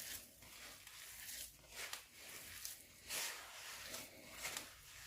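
Coconut and semolina cookie dough being mixed in a bowl: faint, repeated squishing and rustling strokes that swell and fade about once a second.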